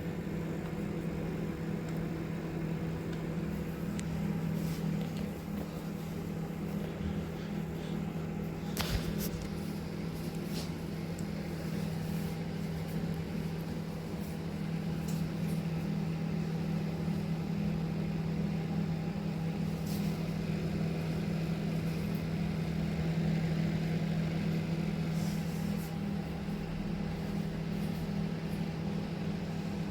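Microwave oven running on high, a steady low hum with a few faint scattered clicks, heating a bag of microwave popcorn.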